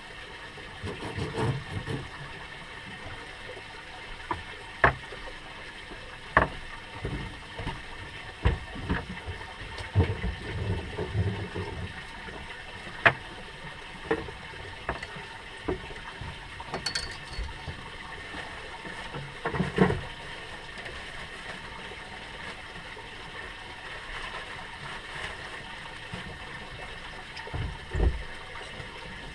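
Water sloshing and gurgling around a drifting fishing boat, with scattered sharp knocks and clunks on deck, the loudest about five, thirteen and twenty seconds in.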